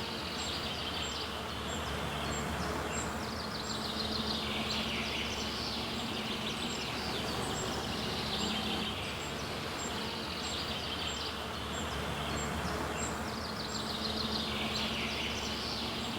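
Countryside ambience: a steady low hum under high, buzzy trilling calls that return every four to five seconds, with faint, regular high ticks throughout.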